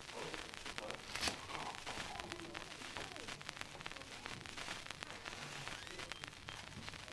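Quiet footsteps and clothing rustle of a person walking, with irregular faint clicks and one sharper knock about a second in.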